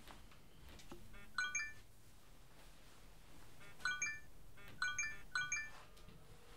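Text-message notification chimes, each a quick run of bright electronic tones: one about a second and a half in, then three more in quick succession from about four seconds.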